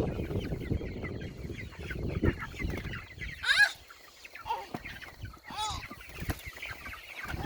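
A crowd of Cornish cross meat chicks peeping and cheeping continuously, with a few louder calls standing out, over rustling during the first few seconds.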